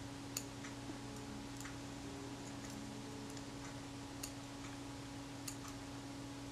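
Faint, irregular light clicks of steel tweezers and small metal parts tapping against a Rolleiflex camera's top plate, over a steady low hum.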